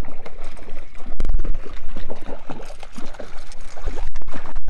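Water sloshing and trickling around a fishing kayak, with a few low thumps about a second in and near the end.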